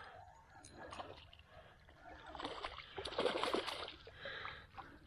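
Water splashing and sloshing, loudest for a second or so about halfway through, as a hooked sea trout thrashes at the surface while it is reeled in and landed.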